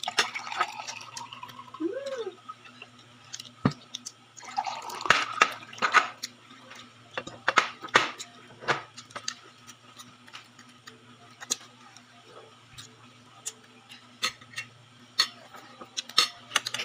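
Eating sounds: crispy fried chicken (Jollibee Chickenjoy) being torn apart by hand, with scattered clicks and taps of a spoon and fingers against a plate and a couple of short crackling patches. A brief hum from the child about two seconds in.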